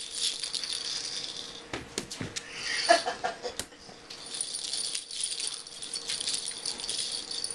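Light jingling and rattling of a small bell, kept up while a skunk and a cat play, with a few knocks and a short louder sound about three seconds in.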